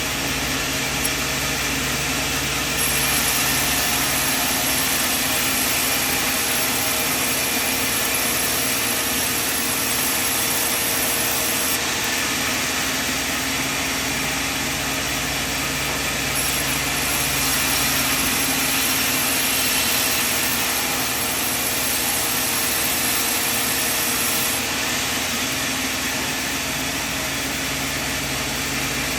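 Sawmill machine running with a steady mechanical drone and hiss. Twice, for about nine seconds each, the hiss turns brighter and higher-pitched, then settles back.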